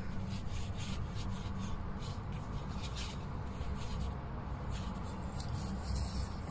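Flat paintbrush stroking pink paint onto paper: a series of short dry scratchy swishes, one or two a second, over a low steady hum.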